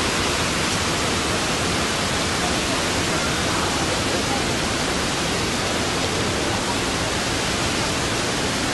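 Steady rushing of water from cascades and a river, an even noise with no breaks.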